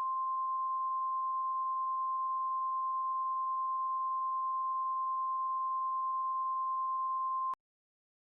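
NOAA Weather Radio 1050 Hz warning alarm tone: one steady, unwavering electronic tone that cuts off sharply about seven and a half seconds in. It signals that a warning broadcast is about to follow.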